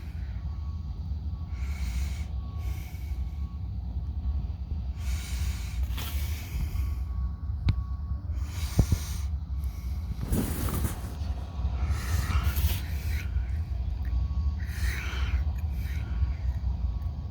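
A person breathing hard, in hissy rushes every second or two, over a steady low rumble, with a few sharp clicks near the middle.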